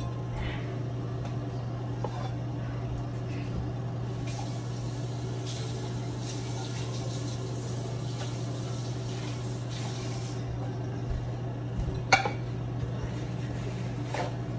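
Kitchen room sound: a steady low hum, with faint clatter of dishes being handled and one sharp knock about twelve seconds in.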